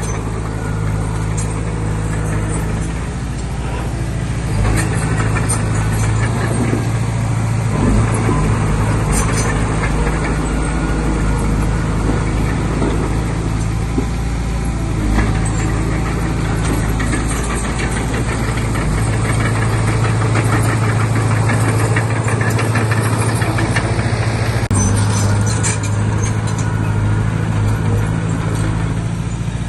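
Komatsu D20P bulldozer's diesel engine running, its steady hum weakening through the middle and coming back strongly, with scattered knocks over it.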